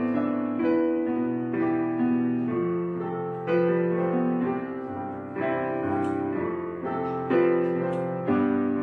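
Background music: a soft piano piece with sustained chords changing about every second or two.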